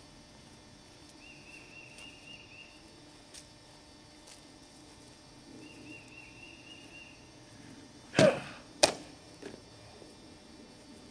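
Custom FableBlades sword cutting a pumpkin: a swish and chop through it about eight seconds in, then a second sharp crack about half a second later.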